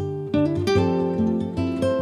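Background music: an acoustic guitar playing plucked notes and chords, a new note sounding about three times a second.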